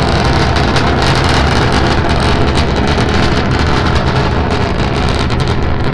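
Starship SN9's three Raptor engines firing during ascent: a loud, steady rumble with continuous crackle.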